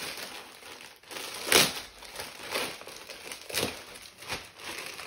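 Wrapping paper being torn open and crumpled by hand, in irregular crinkling rustles, the loudest about one and a half seconds in.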